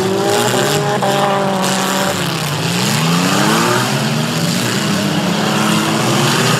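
Several figure-8 race cars' engines revving together. Their pitches slide up and down as the cars accelerate and lift off around the dirt track.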